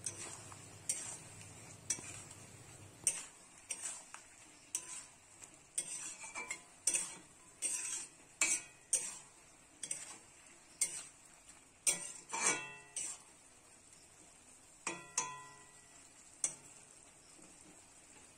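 Metal spatula stirring star fruit pieces in a metal kadai, scraping and clinking against the pan about once a second. Twice in the second half a stroke rings out against the pan's metal.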